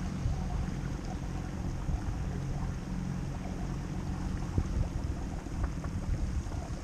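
Wind buffeting the microphone over the rushing of river current around a drifting aluminium boat, with a steady low rumble underneath and a few light knocks about two-thirds of the way through.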